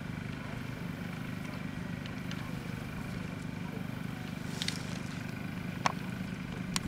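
A steady low engine-like hum with a fine, even pulse, and a few faint sharp clicks in the last two seconds.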